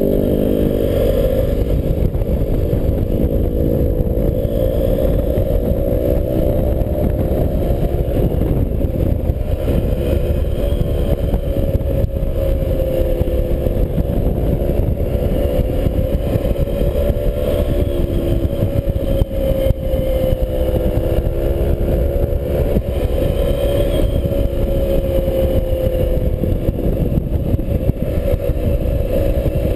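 BMW 650GS motorcycle engine running under way, its pitch rising and falling with the throttle, over a steady low rumble of wind on the bike-mounted camera.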